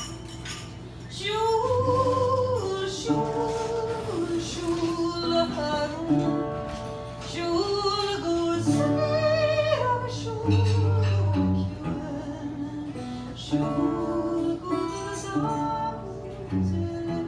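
A song: a woman singing held notes that step up and down in pitch, over plucked guitar accompaniment with low bass notes.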